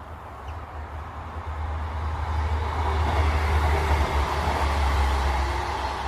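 A motor vehicle passing by, its engine and tyre noise swelling to a peak midway and then fading, over a steady low rumble.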